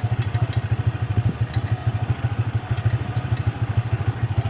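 Motorcycle engine running at low revs, heard from on board: a steady, fast low pulsing engine note, with scattered small clicks and rattles over it.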